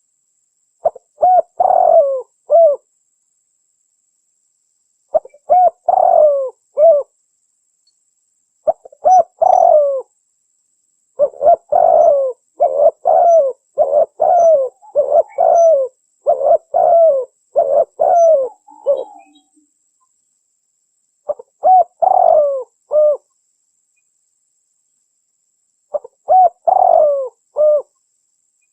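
Spotted dove cooing in short phrases of three or four coos separated by pauses of a few seconds, with a longer run of quick coos in the middle. It is a lure call that the uploader offers as a female calling to males.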